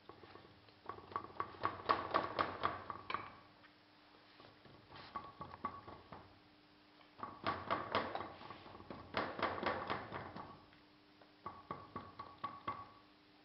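Moulding sand being rammed into a steel moulding flask with a hand rammer: four bursts of rapid knocks, each with a ringing tone.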